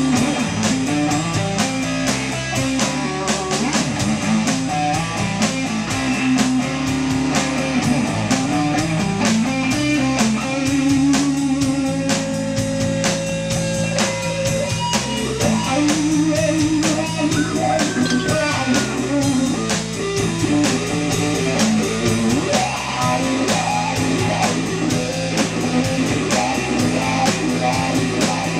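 Instrumental blues-rock played by a band: electric guitar lines over bass guitar and a drum kit keeping a steady beat.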